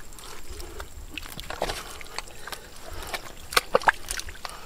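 Wet mud squelching and slopping as an eel is pulled by hand out of a shallow muddy pit, with scattered small wet clicks. A few sharper wet slaps come close together about three and a half seconds in.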